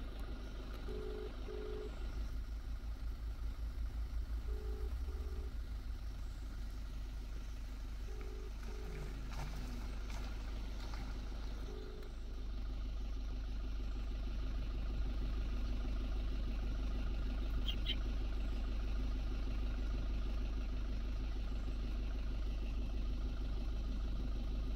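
Stationary vehicle's engine idling with a low steady rumble. Over the first twelve seconds it is overlaid by pairs of short electronic beeps that repeat about every three and a half seconds.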